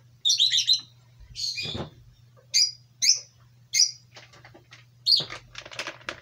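A small bird chirping: a string of short, high chirps, roughly one every half second to a second, over a faint steady low hum.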